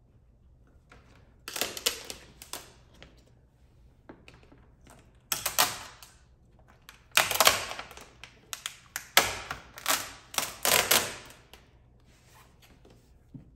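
Leather-wrapped squeegee being pushed over dry air-release tint film on a car headlight lens. It scrapes in groups of short strokes, each group a second or so long, with quiet gaps between them; the busiest run of strokes comes in the second half.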